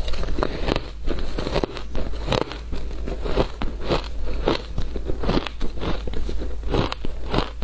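Shaved ice being bitten and chewed in the mouth: a quick, irregular run of crisp crunches, several a second.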